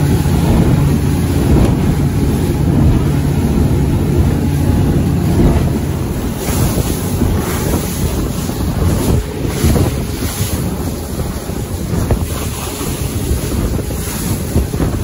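Alaska 500 fishing boat under way at speed: its outboard motor runs under a steady rush of water and wind buffeting the microphone. The hull slaps the waves and spray splashes, more sharply from about six seconds in.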